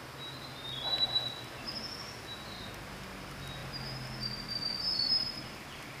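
Rainforest ambience with scattered short, high chirping and warbling calls from forest wildlife, loudest about a second in and again around five seconds.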